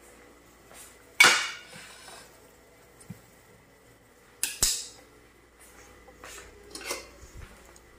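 Kitchen knife and ceramic plates clattering and clinking against each other on the countertop: a loud ringing clatter about a second in, two sharp clinks about halfway, then a few lighter ones.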